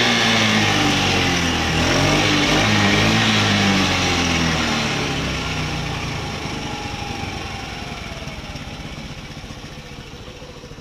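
Motor scooter's small petrol engine being revved up and down a few times, then easing back and fading over the last several seconds. It is running just after a decarbonising injection, and the owner calls its running smooth.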